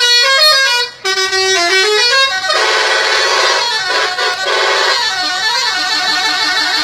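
Indonesian bus 'telolet' horn, a multi-tone musical air horn, playing a tune of quick stepping notes, with a dense blast of many horn tones sounding together in the middle.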